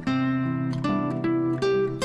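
Background music: acoustic guitar playing, with several strummed chords among held notes.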